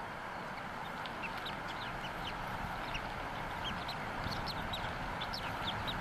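Newly hatched bald eagle chick peeping: a run of short, thin, high chirps that come more often in the second half, over a steady background hiss.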